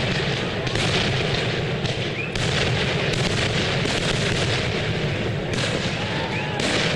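Aerial firework shells bursting in rapid succession: a continuous rolling barrage of booms and crackle, with sharper bangs about a second in, at two and a half seconds, and twice near the end.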